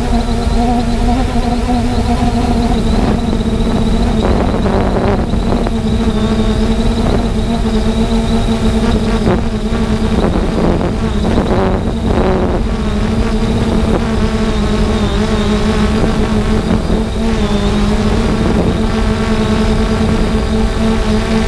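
3DR Solo quadcopter's motors and propellers running with a steady multi-toned hum whose pitch wavers slightly as they hold against gusty wind. Low wind rumble on the microphone throughout, with rushes of wind noise a few seconds in and again near the middle.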